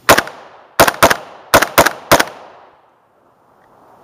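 AK-74-pattern rifle fired rapidly, about six shots in just over two seconds, some in quick pairs, each followed by a trailing echo that dies away about a second after the last shot.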